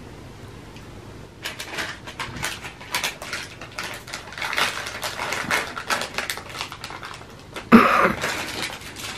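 Crinkling and rustling of a plastic candy wrapper, irregular crackles as it is handled and opened, louder for a moment near the end.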